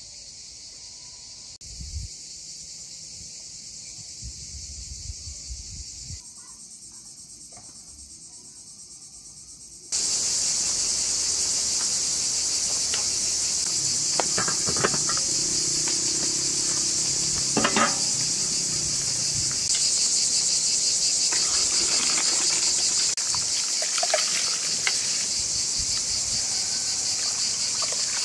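Steady high-pitched chirring of insects, which turns much louder about a third of the way in. A few light knocks and clinks of a metal cooking pot and lid break through it now and then.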